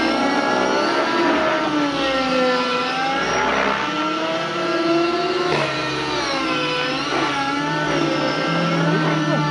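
Two-stroke O.S. MAX-55HZ glow engine of a JR Vibe 50 NEX nitro RC helicopter in 3D aerobatic flight. Its high engine and rotor whine rises and falls in pitch again and again as the helicopter swoops and flips.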